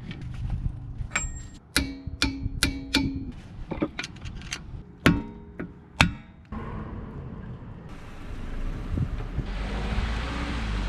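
Sharp metallic clanks and taps with short ringing, a dozen or so spread over the first six seconds, typical of tools at work on the car's rear axle hub. About six and a half seconds in, it changes abruptly to a car's engine and road noise, which grow louder as the car picks up speed.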